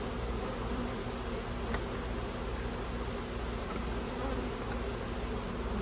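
Honeybees buzzing steadily around an open hive, a colony stirred up as its frames are worked, with one faint click about two seconds in.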